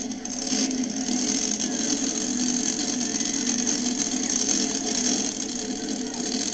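Monster truck engine running steadily while the truck is staged at the starting line.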